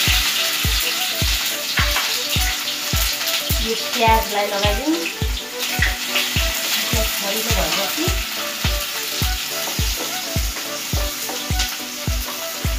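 Chopped onions sizzling and crackling as they fry in hot oil in a wok, stirred with a wooden spatula. Background music plays along with a steady low beat of about one and a half thumps a second.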